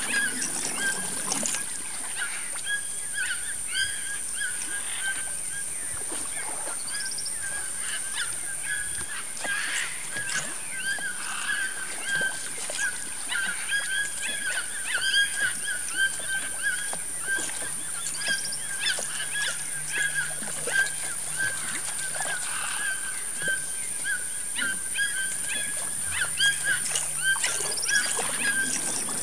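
Birds calling over and over in short repeated notes, with a steady high-pitched drone underneath.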